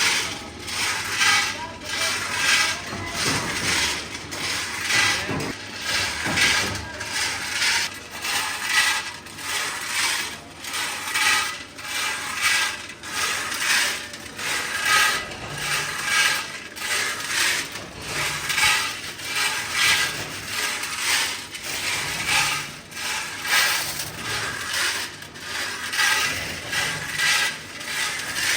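Hex-nut production machinery running with a regular metallic clatter and clanking, pulsing about once a second.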